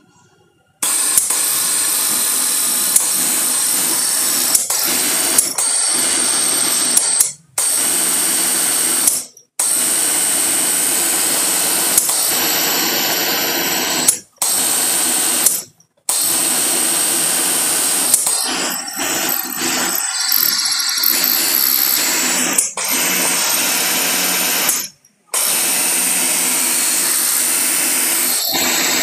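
Industrial sewing machine with an Efka servo motor running at high speed in long stretches. It stops dead for a moment about five times and starts straight up again, with a light tick every second or two.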